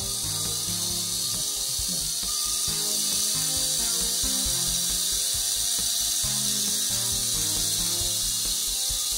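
Sherline lathe/mill 90V DC motor running freely with no pulley fitted. Its new, larger commutator and fresh carbon brushes are bedding in, giving a steady high hiss of brushes on the commutator.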